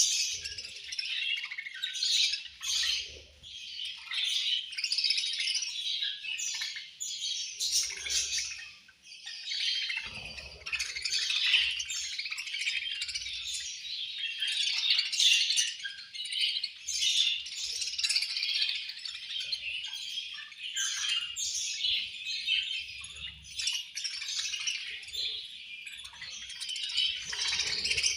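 A flock of budgerigars chattering: many short, overlapping chirps and warbles without a break.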